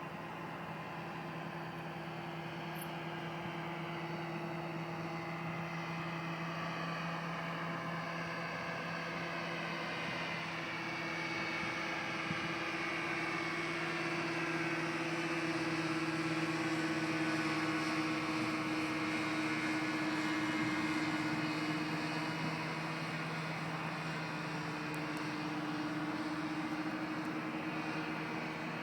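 Ultralight aircraft engine droning in flight, a steady pitched hum that grows louder toward the middle and eases off near the end as the aircraft passes, its pitch shifting slightly.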